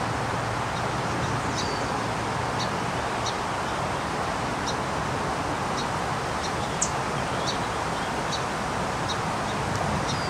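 Small songbird giving short, high chip calls every half second to a second, irregularly, over a steady rushing outdoor background noise.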